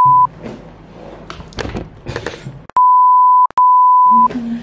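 Steady single-pitch censor bleeps that replace the audio beneath them: one cuts off just after the start, then two more follow in quick succession about three seconds in, with only faint rustling between.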